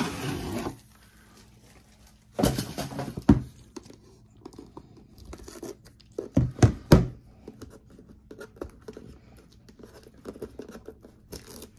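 Sealed packaging of a trading-card box being torn open and crinkled by hand: two louder tearing bursts, about two and a half and six and a half seconds in, with lighter rustling and clicks between.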